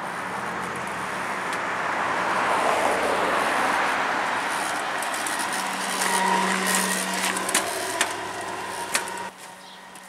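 A car passing on the street, its noise swelling to a peak a few seconds in and then easing off. A few sharp clicks follow near the end, and the sound drops off suddenly.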